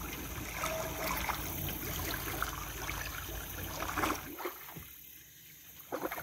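River water splashing and bubbling around a diver at the surface, with air from the diver's breathing gear boiling up. A low steady rumble stops suddenly about four seconds in.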